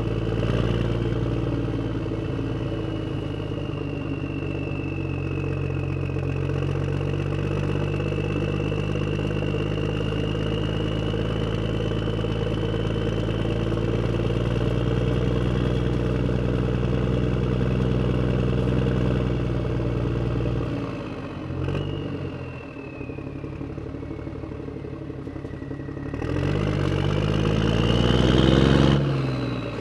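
An engine running at a steady speed, with a high faint whine above it. About 21 s in, the sound drops and breaks up; then the engine rises in pitch as it speeds up, and falls away just before the end.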